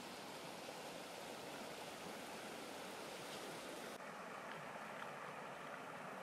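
A shallow stream running over rocks and a small cascade, a steady rush of water. The sound changes in tone about four seconds in.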